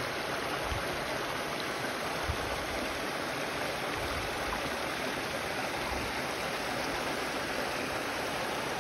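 Small waterfall: a shallow stream cascading down a rocky channel into a pond, a steady rush of falling water.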